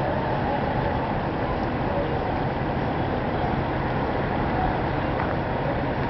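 Steady, even low background noise with no distinct events, of the kind heard outdoors from wind or traffic.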